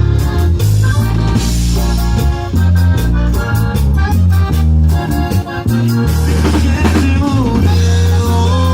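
Live band playing an instrumental passage: deep bass notes, drum kit and guitar, with a keyboard chord held near the end.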